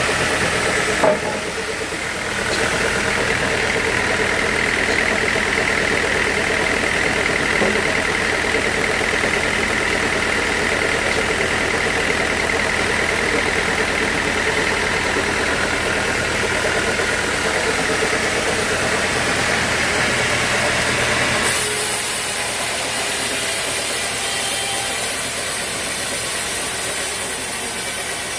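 Sawmill machinery running steadily, with a sharp knock about a second in. A high whine holds from a couple of seconds in until about 21 seconds, then gives way to a hiss.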